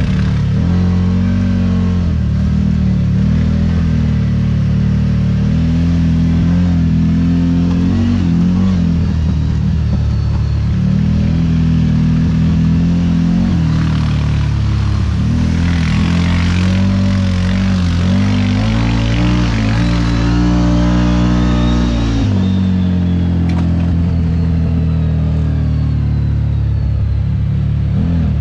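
A CFMoto UForce 1000 side-by-side's V-twin engine runs continuously under throttle, its pitch rising and falling as it speeds up and eases off. Around the middle, water splashes and hisses for several seconds as the machine drives through a shallow muddy creek crossing. The engine revs up, then drops off sharply a little after two-thirds of the way in.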